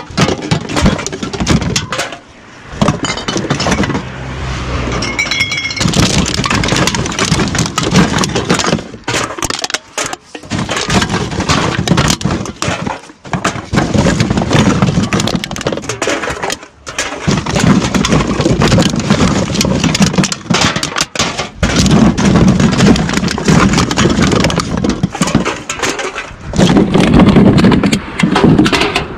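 Empty plastic drink bottles and aluminium cans clattering and crinkling as they are handled and dropped into a plastic tote, a dense run of clinks and rattles with short pauses.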